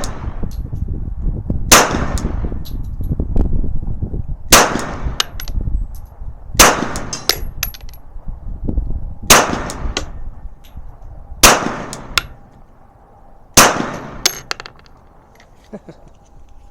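Glock 21 Gen4 pistol firing .45 ACP full metal jacket rounds: six single shots about two to three seconds apart, the last about three seconds before the end. Small metallic tinkles follow the shots, from the spent brass casings landing.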